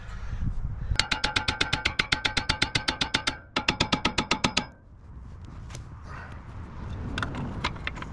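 Steel hammer striking the front steering knuckle in two quick runs of ringing metal-on-metal blows, about twenty and then about ten, to break the lower ball joint loose. A few light metallic clinks of tools follow.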